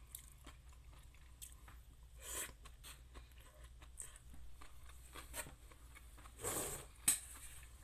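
Close eating sounds: chewing a mouthful of noodles, with small clicks of a plastic fork. Two short scuffing noises, one about two seconds in and a longer one a little past six seconds, followed by a sharp click.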